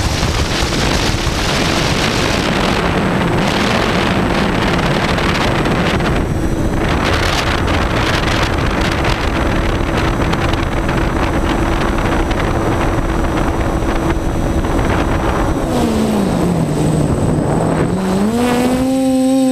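TBS Discovery quadcopter's electric motors and propellers whining steadily with heavy wind rush, heard from the onboard camera. About three-quarters of the way through the pitch drops as the motors slow, then climbs back up near the end.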